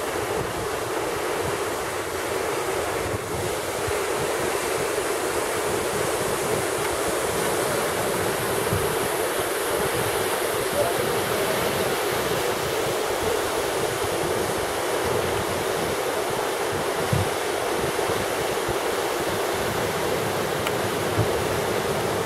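Steady, even rush of the Rinka waterfall's falling water, with some irregular low wind buffeting on the microphone.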